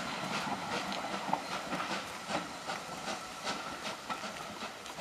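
Railway coaches rolling slowly away over the track: irregular sharp clicks and knocks of steel wheels over rail joints and points, over a steady hiss.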